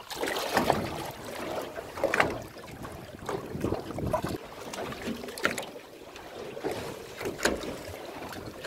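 Seawater sloshing and slapping irregularly against the side of a small boat, with wind on the microphone.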